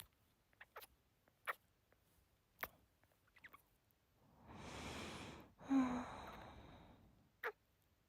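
A woman's soft kisses close to the microphone, a few single lip smacks spread through, and about four seconds in a deep breath in followed by a long sigh out that begins with a brief hum.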